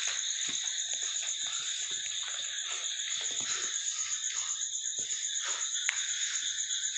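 Crickets chirping in a steady, high-pitched night chorus, with a few faint knocks.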